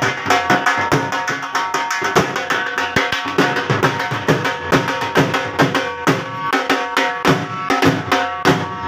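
Punjabi dhol, the double-headed barrel drum, played hard in a fast, driving rhythm of many strokes a second, with deep bass hits and sharper treble cracks, over a few steady pitched notes underneath.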